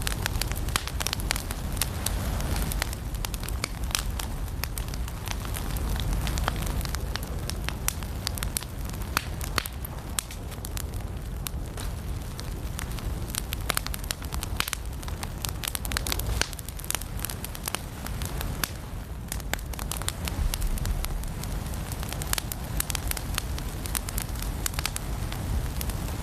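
Firewood burning in a fireplace: a steady low rumble of flame under frequent, irregular sharp crackles and pops.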